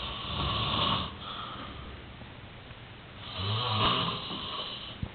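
Snoring in two long snores about three seconds apart, the second one louder. A short sharp click comes just before the end.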